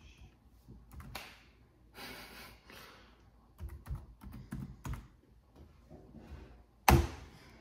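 Scattered clicks and taps on a computer keyboard, irregular rather than steady typing, with one louder sharp knock near the end.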